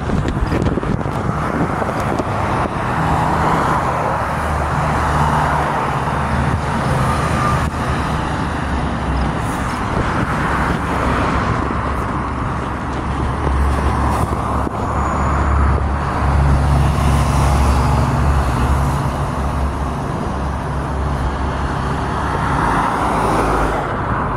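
Road traffic on a wide city street: a steady rumble of car engines and tyres that swells a few times as vehicles go by.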